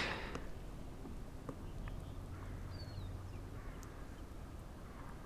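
Quiet waterside ambience with faint, distant bird calls, including one short, high falling chirp about three seconds in.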